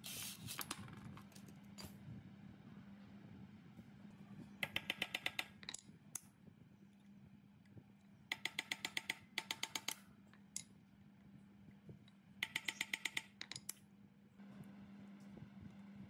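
Three short runs of quick, ringing metallic clicks, about eight clicks each, from a steel hex key working the bolts of a bearing flange on a steel machine frame. A low steady hum runs underneath.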